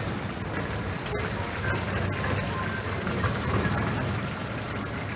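Chicken pieces deep-frying in hot oil in a large kadai, a steady sizzle as a perforated skimmer stirs them, with a steady low rumble underneath.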